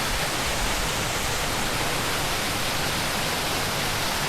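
Steady rushing of a mountain stream tumbling over a chain of small waterfalls, an even hiss with no breaks.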